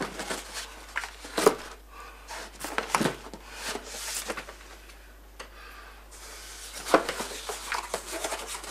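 Cardboard boxes being rummaged through and lifted out of a larger carton: rustling and scraping of cardboard with scattered sharp knocks, a few of them louder, the clearest about a second and a half in, three seconds in and near the end.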